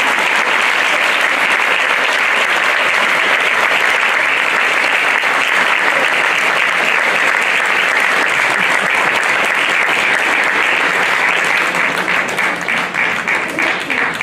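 Audience applauding steadily, the clapping thinning into separate claps near the end.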